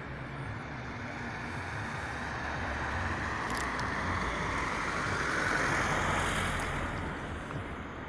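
A road vehicle passing by, its tyre and engine noise swelling to a peak about six seconds in and then fading away.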